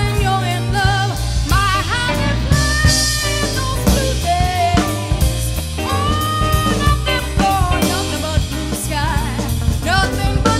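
Background music: a song with a drum kit keeping a beat under a wavering melody line.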